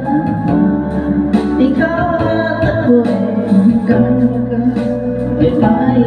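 A man singing a held, gliding melody through a handheld microphone over an amplified backing track with a steady bass line and a regular beat.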